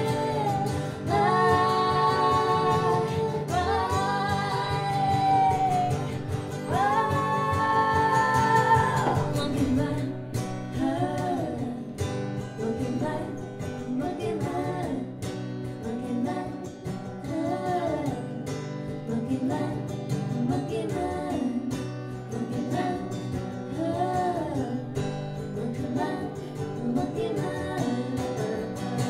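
Live acoustic music: two acoustic guitars with women's voices singing long held notes for about the first nine seconds, then a stretch of short, repeating melodic phrases over the guitars.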